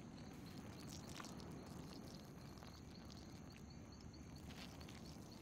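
Quiet woodland ambience at night: faint, evenly repeated insect chirps over a low steady rumble, with a few soft rustles.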